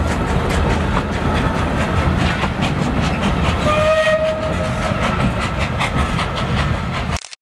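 Train on the Train des Mouettes heritage railway running along the track, a steady rumble with wheels clicking over the rail joints. A single whistle blast about a second long sounds about four seconds in. The sound cuts off abruptly just before the end.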